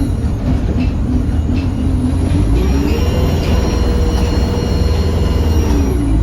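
Diesel bus engine under way, heard from on board: its pitch rises about two and a half seconds in, holds, then drops back near the end. A thin high whistle rides over it, the turbocharger whistle this bus is known for.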